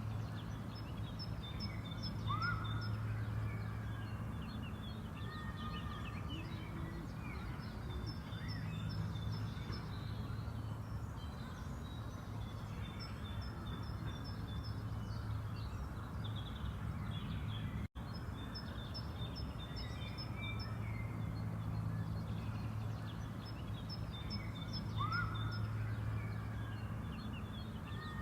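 Park ambience: small birds chirping in quick repeated phrases, with an occasional upward whistled note, over a steady low hum. The recording drops out for a split second about two-thirds of the way through and starts the same stretch of birdsong over again.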